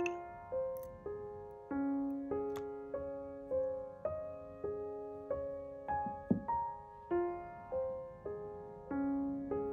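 Soft solo piano background music, single notes and chords each struck and fading away, with a couple of faint clicks.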